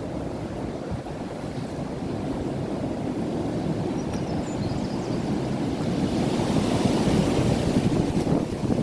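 Strong wind blowing and buffeting the microphone as a low, steady rush. It grows louder a few seconds in and peaks near the end.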